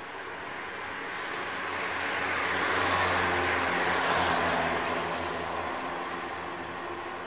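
Keikyu electric trains running past on the tracks: a rumble of wheels and running gear with a steady hum, swelling to its loudest about three to four seconds in, then fading.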